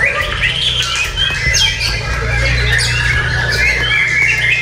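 Several caged white-rumped shamas (murai batu) singing at once in a song contest, their loud, rapid, varied whistled phrases overlapping continuously. A steady low rumble runs underneath.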